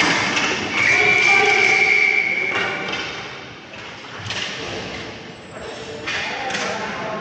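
Inline roller hockey play in an echoing arena: knocks and thumps of puck and sticks against the boards, with players calling out. About a second in, a single steady high whistle blast lasts about a second and a half, which in this game is the referee's whistle stopping play.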